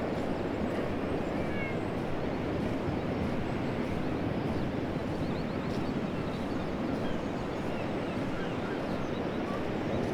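Stream water running steadily, with faint bird chirps here and there.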